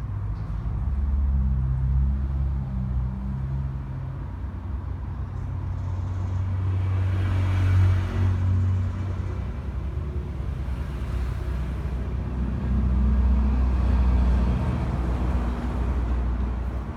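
A motor vehicle's engine running low, its pitch stepping up and down, with a swell of road noise around eight seconds in. No siren is heard.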